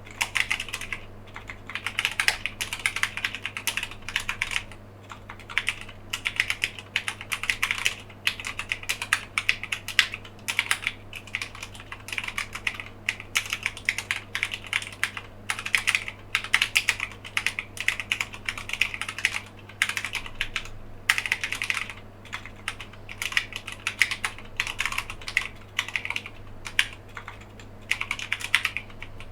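Keychron K8 wireless mechanical keyboard being typed on steadily: fast runs of key clicks with brief pauses between bursts, over a faint steady low hum.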